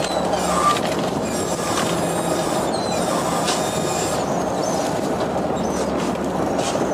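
Fishing boat's engine and deck crane machinery running steadily while a brailer net of fish is hoisted, with a few short, high squeaks through it.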